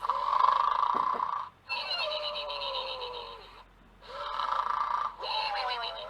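Snore'n'Snuggel plush dog's built-in electronic snoring sound, set off by pressing its hind paw. Two snore cycles repeat with short pauses: a drawn-in snoring breath, then a whistling out-breath that falls in pitch.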